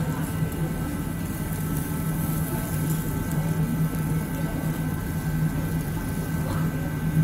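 Steady low mechanical hum, unchanging throughout, with a few faint steady high tones over it.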